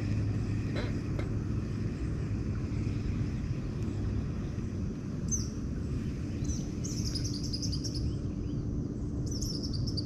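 A bird chirping in quick runs of short high notes through the second half, over a steady low rumble.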